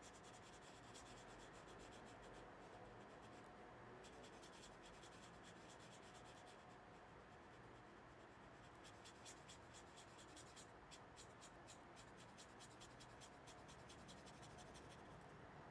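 Faint scratchy strokes of a fine paintbrush on watercolour paper: quick short strokes, coming thicker and faster in the last several seconds, over quiet room tone.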